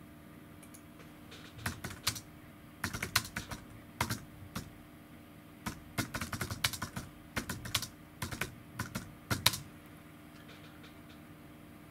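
Typing on a computer keyboard in several short runs of keystrokes, starting about a second and a half in and stopping a couple of seconds before the end.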